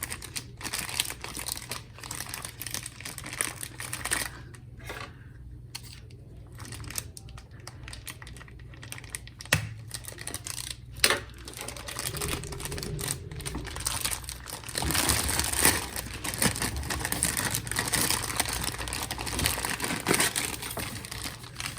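Packaging crinkling and rustling, with scattered light clicks, as a portable Bluetooth speaker is taken out of its box; the handling gets louder about halfway through.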